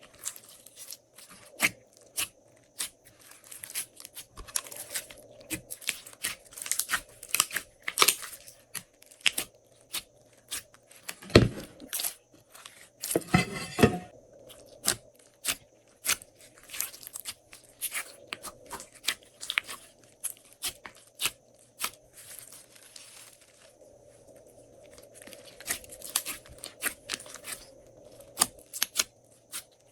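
Glossy slime being kneaded and stretched by hand, giving a dense run of sticky clicks and crackling pops, with a louder cluster of pops about halfway through.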